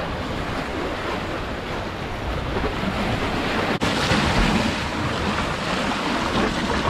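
Sea waves surging and splashing among concrete tetrapod breakwater blocks in rough water, with wind on the microphone. After a brief dropout a little over halfway through, the surge is louder.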